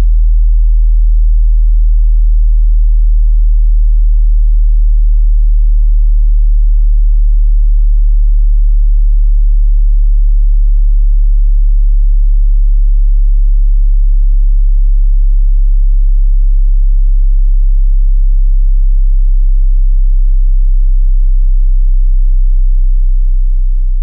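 Synthesized sub-bass sine tone, very deep and loud, held nearly steady in pitch.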